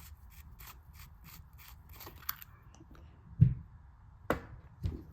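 Small clicks and ticks from handling the parts of an RC car shock absorber during a shock-oil change, with one dull thump about three and a half seconds in and a few sharper clicks near the end.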